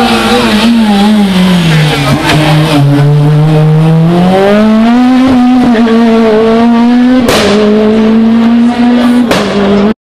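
Rally car engine at full load: its note falls and holds low as the car slows through a tight bend, then climbs steeply as it accelerates away and holds high and steady. Two sharp cracks come near the end.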